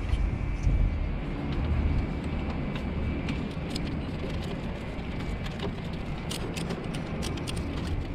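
Socket-wrench ratchet clicking in irregular runs, denser near the end, as 10 mm water-pump bolts are loosened. Under it is a low rumble, loudest in the first two seconds.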